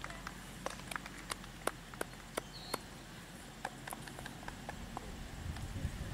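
A pony's hooves clip-clopping at a walk on the arena, a sharp click about three times a second. A low rumble builds near the end.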